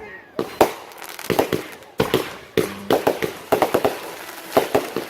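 Fireworks going off: an irregular run of sharp bangs and pops, some coming in quick clusters of two or three.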